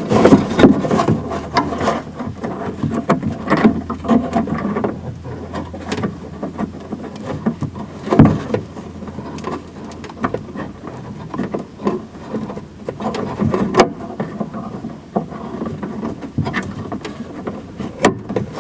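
Irregular small clicks, taps and rubbing of hands and tools working inside a pickup's door shell, fitting the lock rod to the new outside door handle, with a louder knock about eight seconds in.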